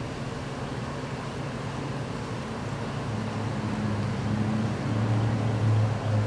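A low, steady engine hum that gets louder from about halfway through, over a constant outdoor background noise.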